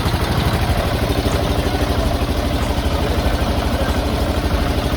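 An engine idling steadily with an even, fast low pulse.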